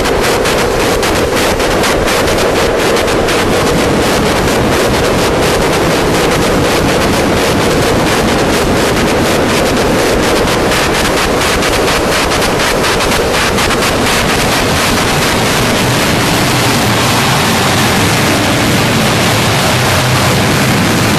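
Harsh noise music: a loud, unbroken wall of distorted electronic noise. It carries a fast flickering crackle and a strong midrange band that both smooth out about halfway through, while a lower rumble thickens in the last few seconds.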